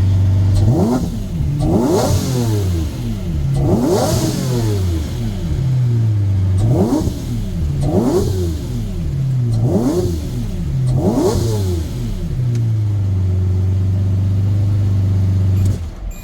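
Car engine with a newly replaced VTC actuator, timing chain and tensioner, idling and being revved about seven times in quick blips, each rise falling back to idle. It then idles steadily and is shut off near the end.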